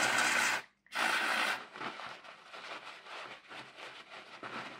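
Two short hisses of aerosol contact cleaner sprayed through a straw onto small carbon motor brushes to wash off thick oil, about half a second each and a second apart. After that, soft rustling of a paper tissue being handled.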